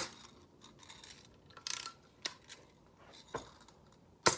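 Two sharp, loud knocks on hard objects, one at the start and one about four seconds in, with fainter clicks and a brief scrape between them.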